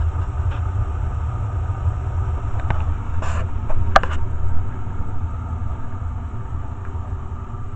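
Old Day and Night gas furnace burning with its natural-draft burners lit, a steady low rumble before the blower fan has started. A couple of short clicks come about three to four seconds in.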